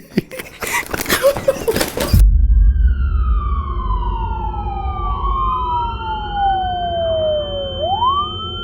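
Emergency-vehicle siren wailing in slow falling and rising glides over a low engine rumble, starting about two seconds in, after a short burst of loud, dense noise.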